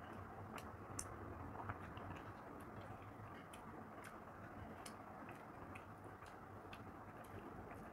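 Fingers mixing rice with mutton curry on a plate: faint light clicks, one or two a second, over a steady low hum.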